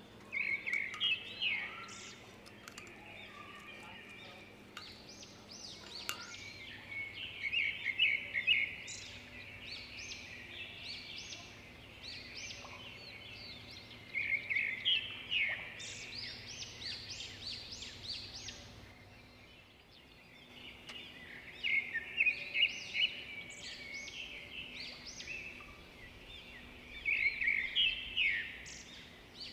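Birds chirping in bursts of quick high notes that come and go every several seconds, over a faint steady low hum.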